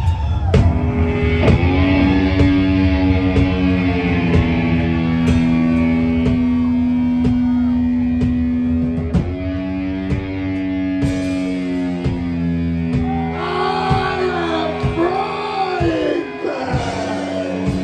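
Live heavy metal band playing loud: long held distorted guitar notes over drum hits, with a singer's wavering voice coming in near the end.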